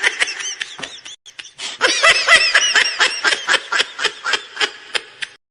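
Laughter sound effect: a high-pitched snickering giggle of quick repeated notes in two runs, the first breaking off about a second in, the second fading away near the end.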